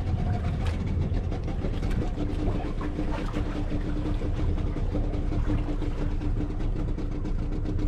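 Small outrigger fishing boat's motor running steadily under wind and water noise, with a steady hum that comes in about two seconds in.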